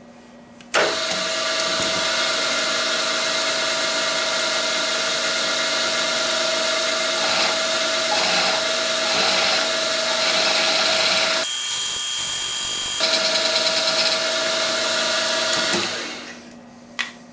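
Optimum MB4 mill-drill spindle starting about a second in and running with a steady whine while a 7.5 mm twist drill bores through a cast pillar-block bearing housing. The whine drops out for about a second and a half past the middle, giving way to a rougher noise, then returns, and the machine winds down near the end.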